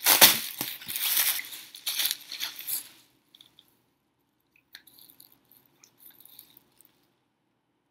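Plastic bubble wrap crinkling and crackling as it is pulled away by hand, loud for about three seconds. After that come a few faint handling clicks.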